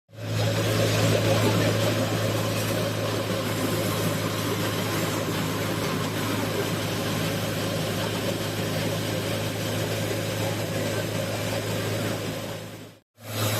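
Pigeon pea threshing machine running: a steady low mechanical hum under a dense rushing, rattling noise of the crop being threshed. It drops out briefly near the end and starts again.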